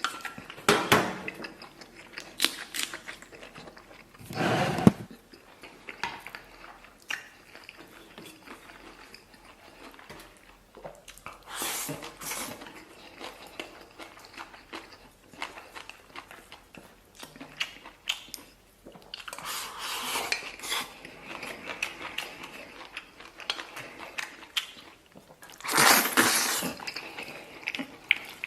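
Eating sounds: chopsticks clicking and scraping against a bowl while a mouthful of rice and stir-fried pig intestines is chewed. Several louder rushes of noise, the loudest near the end, come as food is shovelled from the bowl.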